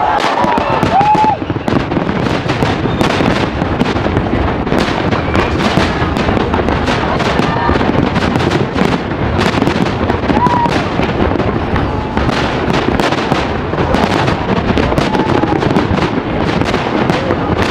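Aerial firework shells bursting in a rapid, continuous barrage, many bangs and crackles close together with hardly a gap.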